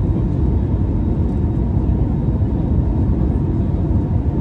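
Steady low rumble of engine and airflow noise inside the cabin of an Airbus A321 descending on its landing approach.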